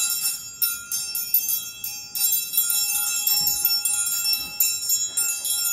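Small bells jingling, shaken again and again, with a lower ringing tone coming in now and then.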